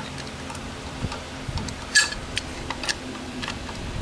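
Small metallic clicks and taps as a carburetor float and its screwed-in retaining pin are handled and removed from the float bowl, with one louder ringing metal clink about halfway through.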